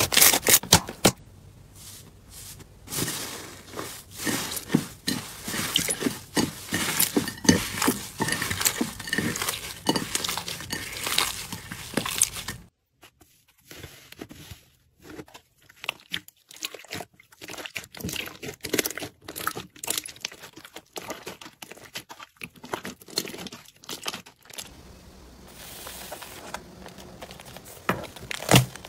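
Hands squeezing and kneading slime, making many quick wet clicks, pops and crackles. About halfway through, with white fluffy slime, the clicks become sparser and quieter.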